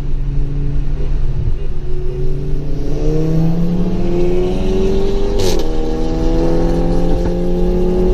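Turbocharged five-cylinder engine of a big-turbo Ford Focus ST225 accelerating hard, its pitch climbing. About halfway through there is a brief sharp crack and the pitch drops, as at a gear change, then it climbs again.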